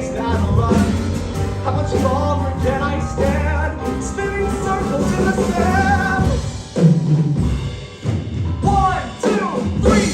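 A song played by a band with a drum kit, with a voice singing over it.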